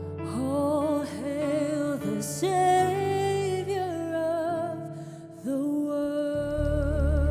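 Worship music: a singer holds long notes with vibrato over sustained keyboard and bass. The music dips briefly near the end, then swells again.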